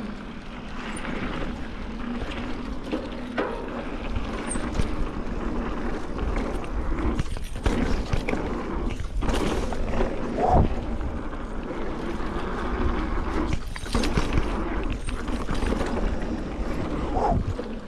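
Mountain bike riding down a dirt trail: steady wind rush on the camera mic and rumbling tyre and trail noise, with scattered knocks as the bike goes over bumps.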